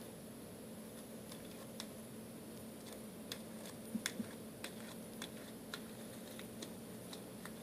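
Glittery glue-and-borax putty slime being squished and kneaded by hand: irregular small clicks and pops, with a few louder ones about four seconds in.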